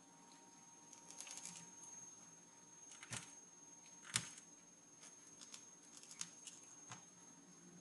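Faint clicks and scrapes of fingers working a small plastic wire connector loose on a CD-ROM drive's circuit board, with a sharper click about four seconds in.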